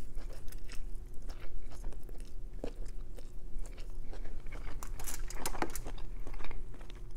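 A person chewing a mouthful of chow mein noodles: a string of small mouth clicks and smacks, over a faint steady hum.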